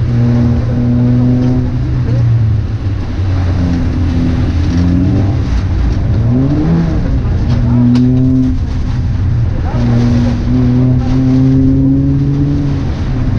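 Suzuki Swift Sport's 1.4 Boosterjet turbocharged four-cylinder engine running under hard throttle, heard from inside the cabin. Its note breaks off and picks up again several times, dips and climbs back about six seconds in, and rises slowly near the end, as the car lifts and changes gear through the stage.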